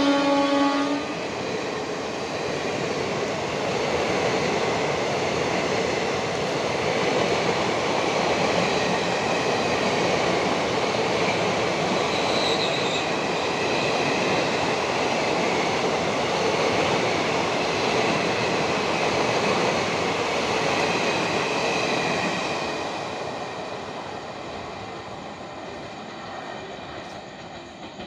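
The horn of a WAP-7 electric locomotive cuts off about a second in. Then the coaches of an express train run past at speed, a steady rush of wheel and rail noise that fades away over the last few seconds as the end of the train recedes.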